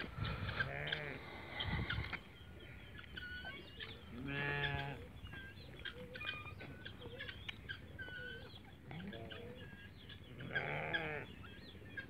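Farm livestock calling: wavering, bleat-like calls about a second long, at the start, about four seconds in and again near the end. Many short, high bird chirps run in between.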